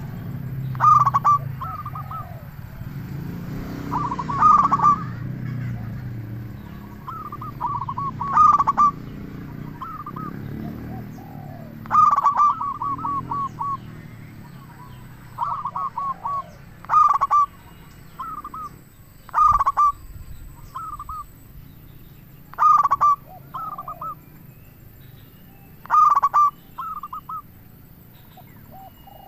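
Local zebra dove (perkutut) singing: short phrases of quick, rippling cooing notes, repeated about every three to four seconds.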